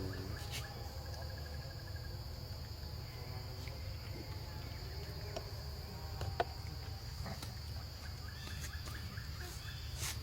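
Steady high-pitched drone of insects, over a low steady rumble, with a single sharp click about six seconds in.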